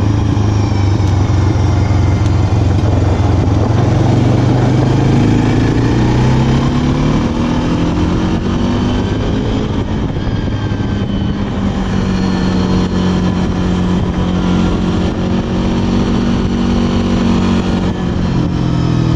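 Honda ATV engine running under way, its pitch rising as the machine speeds up over the first several seconds, then holding steady and dropping briefly near the end.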